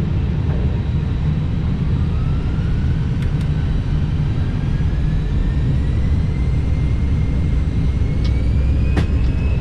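Steady low rumble of cockpit noise in an Airbus A320, with a faint whine that slowly rises in pitch from about two seconds in. A couple of brief clicks sound, one about three seconds in and one near the end.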